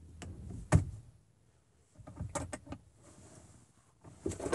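Hands handling the controls inside a car: a light click, a sharp knock about three quarters of a second in, then a few softer clicks and rattles around two seconds in, with more knocks starting near the end.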